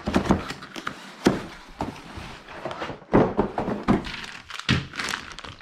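Parts of a TV wall-mount kit being handled and set down: a series of separate thunks and knocks a second or so apart.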